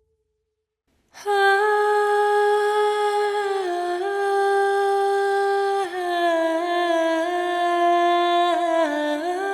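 A woman's wordless humming song in the style of a mythical siren's lure, coming in about a second in after silence. She holds long, smooth notes, gliding down and back up between a few pitches.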